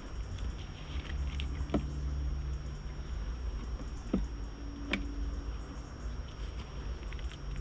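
Wooden beehive roof being handled and lifted off: a few sharp clicks and knocks of wood against wood, over a steady low rumble and a low hum.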